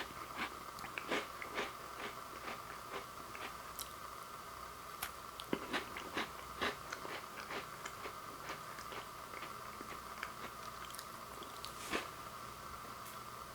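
A person biting and chewing a crunchy lemon-dipped shortbread cookie: irregular crisp crunches, several a second at times, over a steady faint hum.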